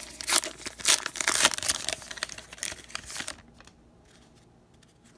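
Baseball card pack wrapper being torn open and crinkled: a quick run of tearing and crackling that stops a little over three seconds in.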